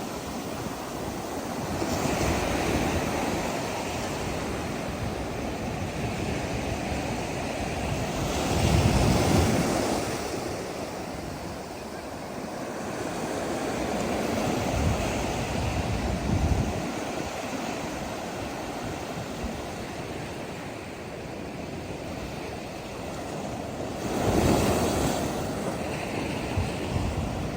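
Ocean surf: waves breaking and washing up the beach in a steady roar, with louder breakers about 9 seconds in and again near the end, and some wind buffeting the microphone.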